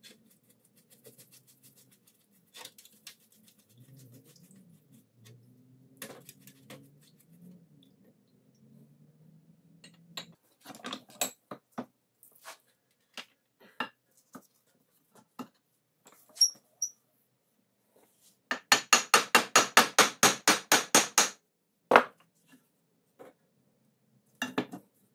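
Hand-tool work on the parts of a seized, rusted hoist spindle being stripped down: scattered metal clinks and knocks, then a quick even run of about fifteen sharp metal strikes, some six a second, like rapid light hammering, followed by one more knock.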